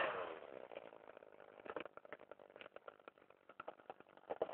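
Faint, irregular rustling and crackling as grass is handled and put into the cage.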